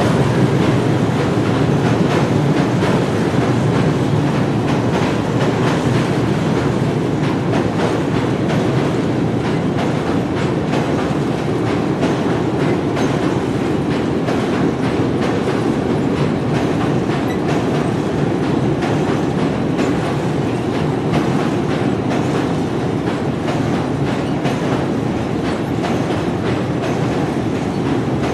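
Train running steadily along the track, a continuous rumble with wheels clacking over the rails.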